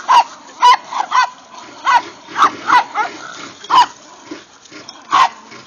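Chihuahuas yapping in sharp, high-pitched barks while they scuffle with a larger dog, about eight barks in uneven succession.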